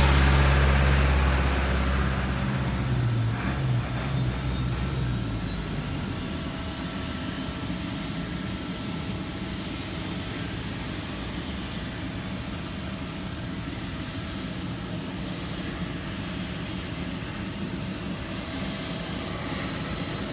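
Cessna Citation CJ2's twin Williams FJ44 turbofans running, with a steady whine. A loud low rumble fades away over the first few seconds, leaving a quieter, even engine noise.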